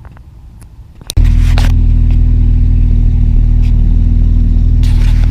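A boat's inboard engine starts about a second in and runs on at a loud, steady idle.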